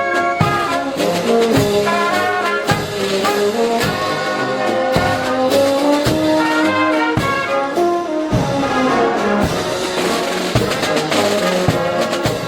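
Background music: an instrumental passage with horns playing a melody over a steady drum beat.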